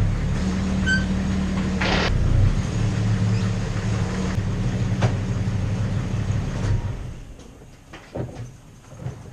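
A 1993 Jeep Grand Cherokee's engine running steadily, then shutting off about seven seconds in, followed by a couple of short knocks.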